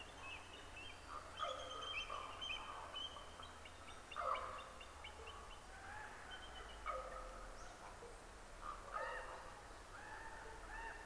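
Animal calls repeating every second or two, with quicker high chirps between them.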